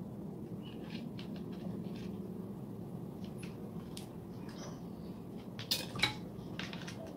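Light plastic clicks and taps from a KF102 folding drone being handled and moved on a table, over a low steady hum, with two sharper knocks near the end.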